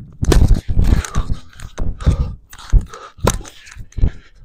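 Tennis rally with racket strikes on the ball, the sharpest hit coming about three seconds in, over wind buffeting the microphone.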